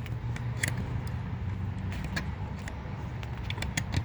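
A steady low motor hum, with scattered light clicks and taps over it.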